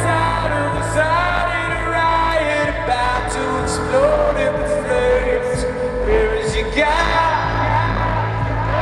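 Live rock band music heard from within the audience: a sung melody rising and falling over a steady low bass note.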